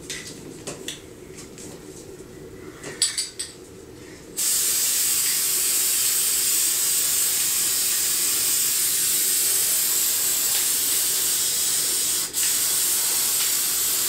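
Aerosol can of silver metallic spray paint spraying in one long steady hiss, starting about four seconds in after a few light handling clicks and rustles of the branches, with a brief break near the end.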